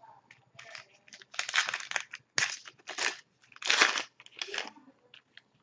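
Trading card pack wrapper being torn open and crumpled, in a run of irregular crinkling rips with the loudest one a little before the end.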